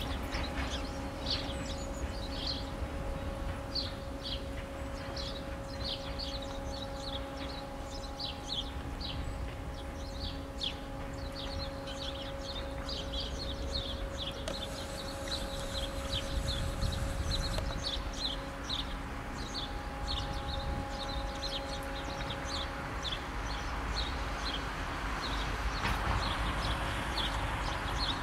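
Small birds chirping busily over the steady hum and low rumble of a Siemens Desiro diesel multiple unit approaching slowly, its sound swelling a little near the end.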